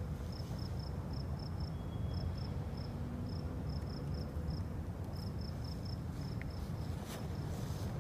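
Crickets chirping, a string of short high chirps a few a second with small pauses, over a steady low rumble.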